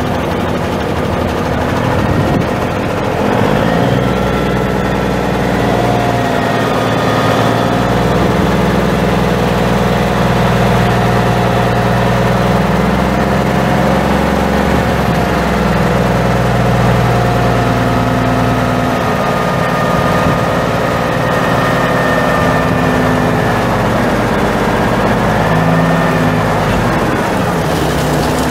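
Cummins NTA-400 855 six-cylinder turbo diesel engine of a 1986 Freightliner dump truck running. Its speed rises about three seconds in, holds with a few small changes, and falls back near the end.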